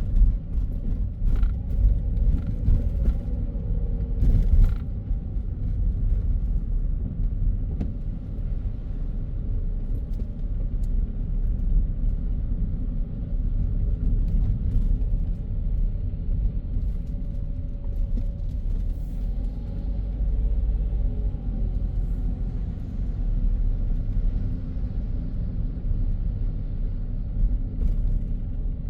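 Car driving along a city road: a steady low rumble of tyres and engine, with a few faint clicks and knocks in the first five seconds.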